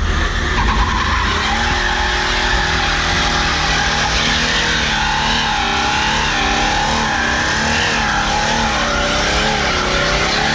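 BMW E46 3 Series coupé doing a burnout: the rear tyres spin and squeal on the tarmac while the engine is held at high revs. The squeal starts about half a second in and wavers up and down in pitch, more strongly in the second half.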